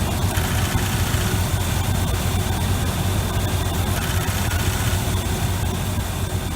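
The 454 big-block V8 of a 1988 Chevy R35 dually truck, idling steadily.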